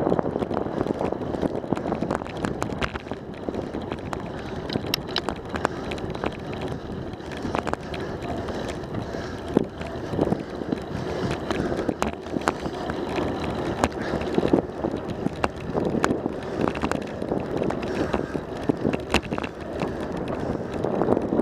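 Riding noise from a bicycle-mounted camera rolling along a paved path: a steady rush of wind buffeting the microphone and tyre noise, with frequent sharp clicks and rattles from bumps in the pavement.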